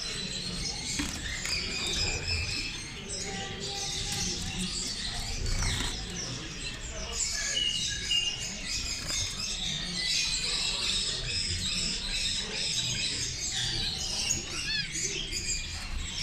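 Many small cage birds chirping and trilling together, a dense chorus of short high calls over a low background rumble.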